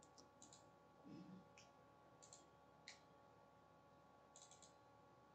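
Near silence, broken by a handful of faint computer mouse clicks spread through it, a few close together near the end.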